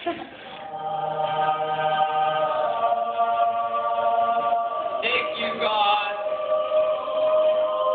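Slow background music of long held, choir-like chords, changing chord about five seconds in.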